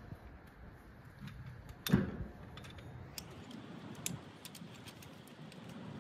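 Metal hand tools clinking and rattling against engine parts while a bolt is worked on, in irregular small clicks, with one sharp metal clank about two seconds in.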